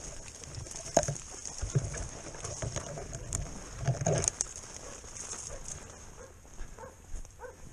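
Footsteps crunching through snow, with bare twigs and branches brushing and knocking against clothing and the rifle, a few sharper knocks about a second in and near four seconds, over a steady high hiss.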